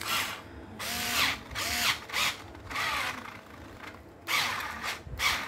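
Small cordless electric screwdriver running in a series of short bursts, its motor spinning up and stopping again several times, with the clutch set to its highest, no-slip setting.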